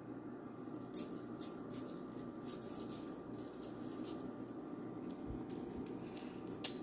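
Faint, scattered light taps and ticks of kitchen handling over a low steady room hum.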